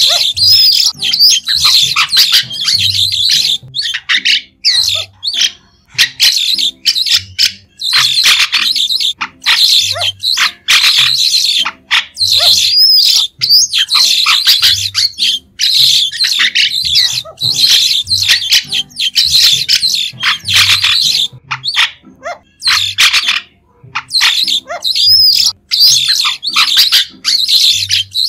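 White-shouldered starlings calling: runs of short, shrill, high chattering calls in quick succession, broken by brief pauses.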